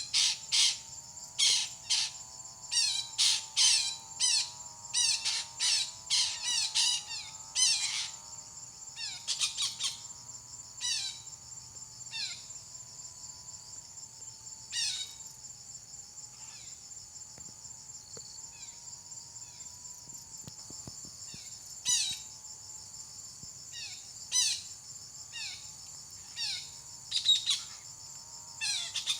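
A parakeet's sharp, falling chirps, coming thick and fast for the first ten seconds or so and then only now and then, over a steady high-pitched insect trill.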